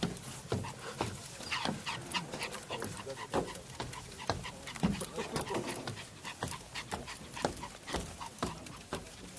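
Small Maltese dog panting, with many short irregular clicks and crackles throughout.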